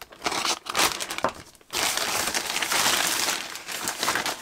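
Plastic parcel packaging crinkling and rustling as it is handled and pulled apart: a few short crinkles, then a longer continuous crinkle about two seconds in.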